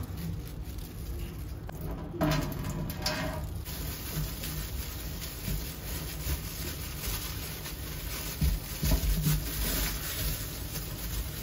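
Quiet household handling sounds: soft rubbing and rustling, with a few light knocks about two seconds in and again near nine seconds.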